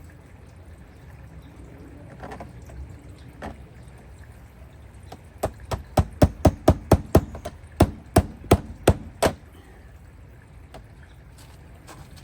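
Hammer driving a nail to fix a pipe hanger: about fifteen quick blows over roughly four seconds, with a brief pause partway through.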